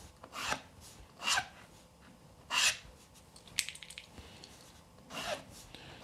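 A pencil drawn along the edge of a Drillpro T-200 square in about five short scratching strokes. The deep-cut graduations on the square's edge are grinding lead off the pencil.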